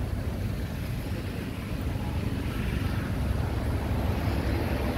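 Wind buffeting the microphone: a steady, flickering low rumble with no clear engine note.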